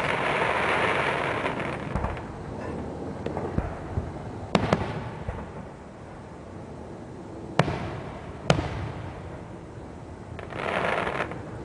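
Aerial fireworks going off: a few sharp bangs at uneven intervals, two close together in the middle and two more about a second apart, with a longer hissing rush at the start and another near the end.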